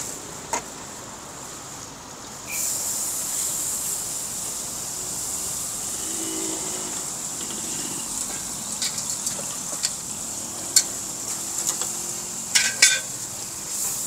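Mee goreng frying in a wok: a steady sizzle that gets louder a couple of seconds in, with scattered sharp metal clanks of the spatula against the wok in the second half. A steady high insect drone runs underneath.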